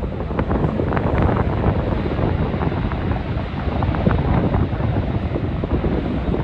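Storm gusts buffeting the microphone: a loud, uneven low rumble of wind noise that flutters with each gust.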